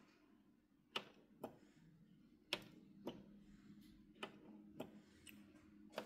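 Plastic control-panel buttons on an Ariston dishwasher clicking as they are pressed, about nine sharp clicks at an uneven pace. They are the key presses for entering the machine's test mode.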